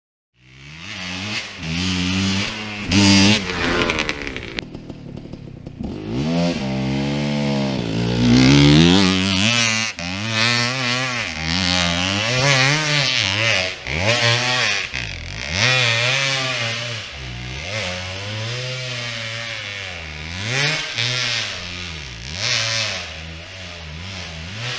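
Enduro motorcycle engine revving up and down over and over as the throttle is opened and shut, its pitch rising and falling every second or two. It cuts in suddenly just after the start.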